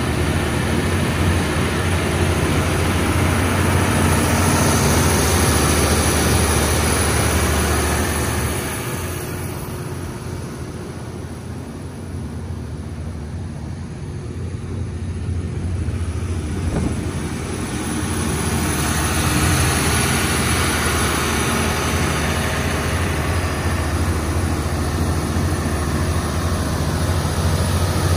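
Kohler 1500REOZDC diesel generator set's MTU 12V4000 V12 diesel engine running steadily inside its sound-attenuated enclosure. The sound is quieter for several seconds in the middle, then comes back up.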